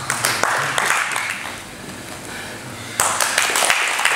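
Audience in a training hall: scattered claps and crowd noise, then applause breaking out suddenly about three seconds in, as the jiu-jitsu match result is given.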